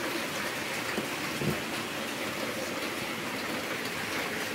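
Steady, even hiss of background noise, with a faint low bump about one and a half seconds in.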